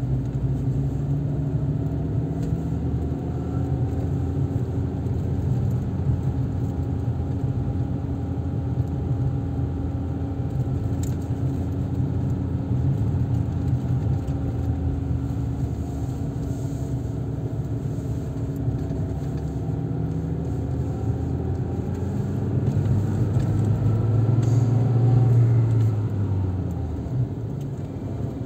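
A car driving on a road: steady engine and road noise with a low hum, growing louder for a few seconds near the end.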